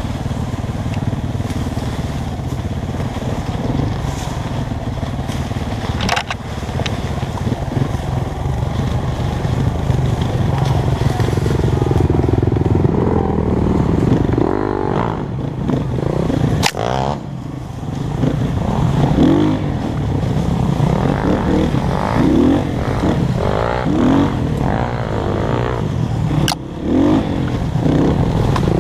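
Dirt bike engine running while riding a trail, the revs rising and falling again and again as the throttle is worked, more so in the second half, with a few sharp knocks.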